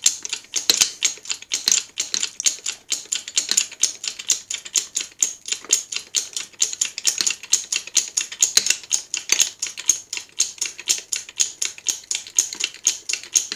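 A 10-ton hydraulic bottle jack being pumped by hand to close a press: a rapid, continuous run of sharp metallic clicks from the pump handle and jack.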